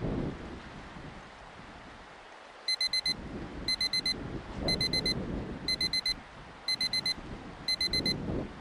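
Electronic timer alarm beeping six times, about once a second, each a quick run of four short high beeps: the count that marks six minutes elapsed. Gusty wind noise on the microphone runs underneath.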